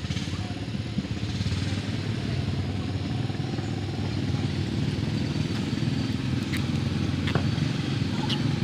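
A small engine running steadily at an even low pitch, with a few faint ticks in the second half.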